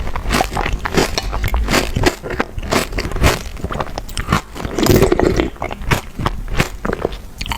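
Close-miked eating of chocolate: a person biting and chewing, with dense crisp crunching clicks and a louder stretch about five seconds in.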